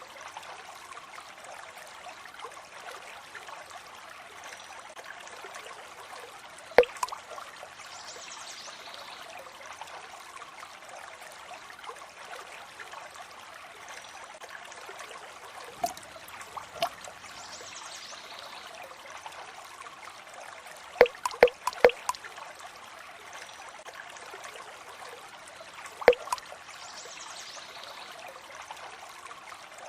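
Water trickling steadily, with loud single drips plinking now and then: one about seven seconds in, two a second apart around sixteen seconds, a quick run of four about twenty-one seconds in, and one more near the end.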